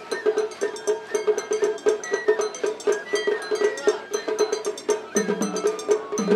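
Japanese festival percussion (matsuri bayashi): a fast, even run of metallic strikes at about four to five a second, with drum beats coming in about five seconds in.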